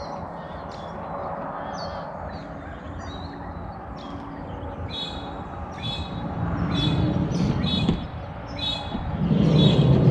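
Birds chirping over and over, short high chirps about twice a second that grow louder about halfway through, over a low rumble that swells twice, most strongly near the end.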